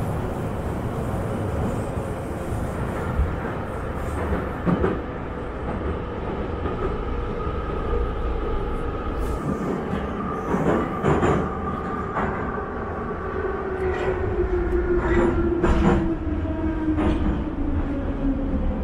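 Metro train heard from inside the carriage as it runs through the tunnel: a steady rumble with clacking from the wheels. In the second half a whine falls steadily in pitch as the train slows into a station.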